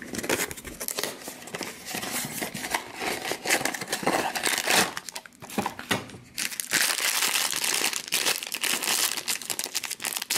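Rustling and crinkling as a Funko Mystery Minis box is handled and the black foil blind bag inside is pulled open. After a short lull about five to six seconds in, the foil crinkling is steady and louder.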